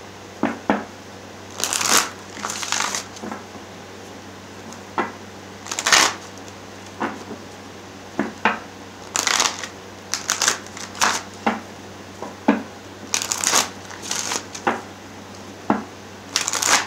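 A deck of oracle cards being shuffled by hand: short, irregular flurries of cards sliding against each other and tapping, coming about once a second.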